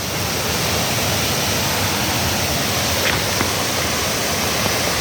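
Waterfall rushing, a steady, loud roar of falling water.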